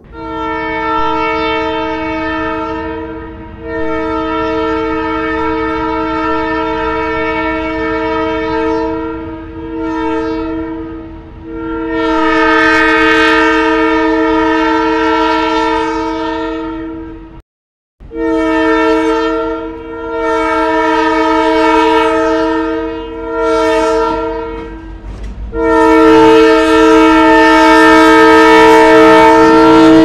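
Diesel locomotive air horn sounding a series of blasts over the low rumble of the train: two long blasts, a short one and a long one, the grade-crossing warning pattern, then after a brief dropout another run of long and short blasts ending in a long, loud blast.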